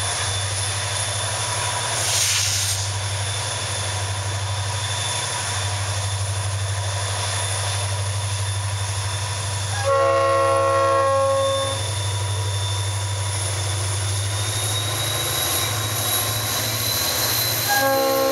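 EMD 16-645E3 diesel locomotives working hard as they accelerate a train, a steady low engine drone with a high whine that climbs in pitch through the second half. The locomotive's multi-chime air horn (a Leslie RS3L) blows a chord for about two seconds around ten seconds in, and sounds again near the end.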